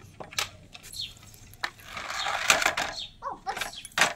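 Plastic toy vehicles handled on a hard painted board: scattered light knocks and clatter, a longer scraping rasp about two seconds in as a toy is pushed along, and a sharp knock near the end.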